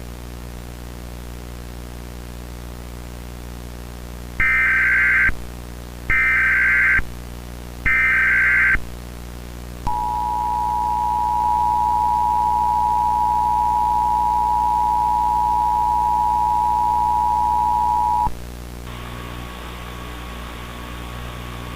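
Emergency Alert System broadcast tones: three short screeching bursts of the digital SAME header, each under a second, then the two-tone attention signal held steady for about eight seconds before cutting off. Static hiss with a faint tone follows it, and a low electrical buzz runs underneath throughout.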